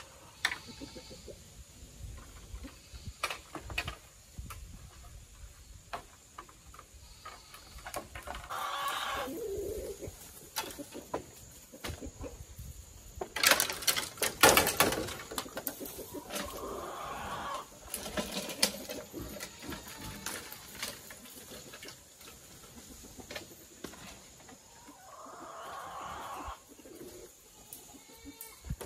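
An animal calling three times, each call about a second long, with a run of sharp knocks and clattering between the first and second calls, louder than the calls.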